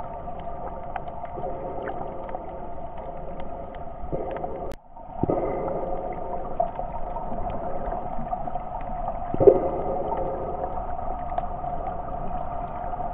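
Underwater sound picked up by a submerged camera: a muffled steady hum with scattered small clicks and a few short swells of water noise. It cuts out briefly near the middle.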